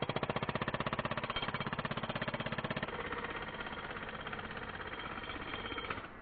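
Power chisel hammering on stone in a rapid, even rattle of about ten blows a second, stopping abruptly near the end.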